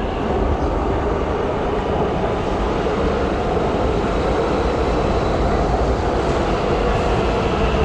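Metro train in motion: a steady rumble and rush of running noise with no break.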